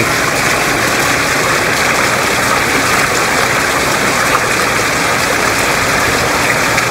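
Garden pond waterfall and stream running: a steady, unbroken rush of splashing water.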